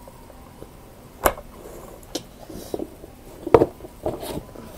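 Objects being handled: three sharp knocks, the loudest about three and a half seconds in, with light rustling between them.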